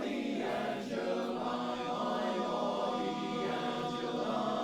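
Male barbershop chorus singing a cappella in close four-part harmony, holding long sustained chords that shift slowly.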